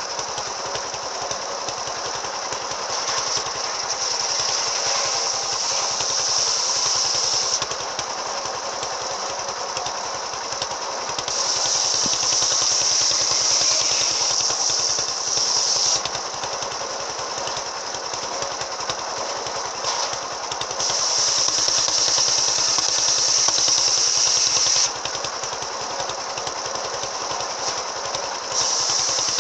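Circular saw machine with an AKM saw blade cutting wood in repeated passes: the machine runs steadily throughout, and four times, for about four seconds each, the blade's high cutting whine swells as it goes through the wood.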